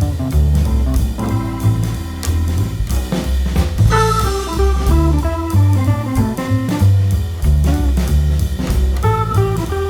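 Background music: an instrumental track with bass, drum kit and guitar over a steady beat.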